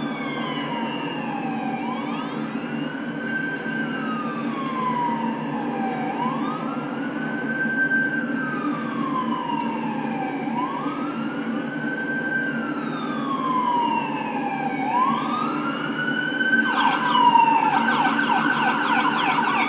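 Emergency vehicle siren in a slow rising-and-falling wail, about one cycle every four seconds, switching to a rapid yelp near the end, over a steady low hum.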